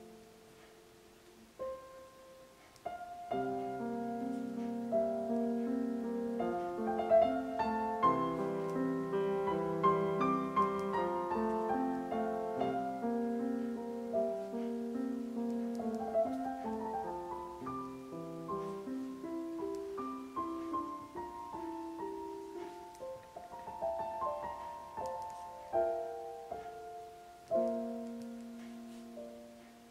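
Solo piano music: a few quiet notes at first, filling out into flowing chords about three seconds in, and ending on a chord that rings away.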